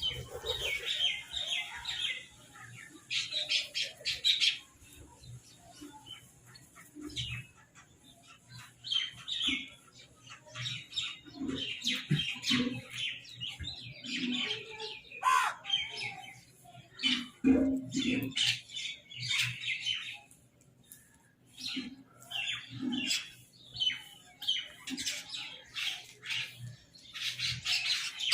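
Crows calling in repeated bursts of harsh squawks, with short pauses between the bursts.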